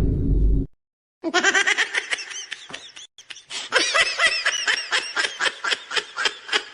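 High-pitched laughter sound effect: a long run of quick "ha" pulses, about five a second, starting about a second in. It follows the tail of a deep rumbling effect that cuts off suddenly just before.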